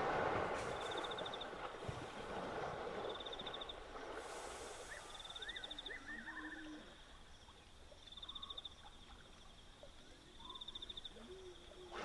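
A hippopotamus call, a loud wheezy bellow, fades out over the first few seconds. Then a high, pulsing insect trill repeats about every second and a half, with a few short rising chirps and faint low calls in the background.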